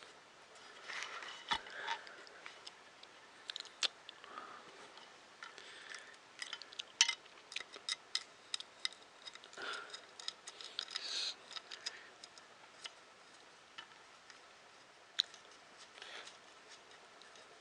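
Small plastic and metal parts of a 3D printer kit being handled and fitted by hand: irregular light clicks, taps and rattles of nuts, bolts and parts, busiest in the middle, with soft rustling between.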